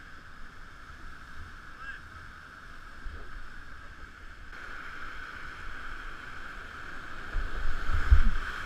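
Whitewater rapid rushing, heard as a steady, muffled roar through a helmet camera's waterproof housing, with heavy low thumps near the end as the kayak is buffeted in the rapid.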